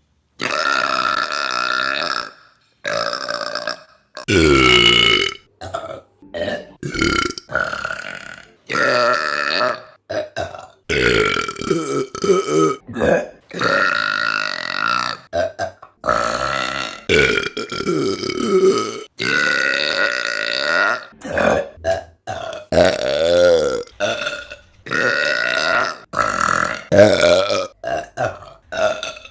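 Women burping, one burp after another: a rapid string of about twenty burps, some long and drawn out with sliding pitch, others short, each starting and stopping abruptly.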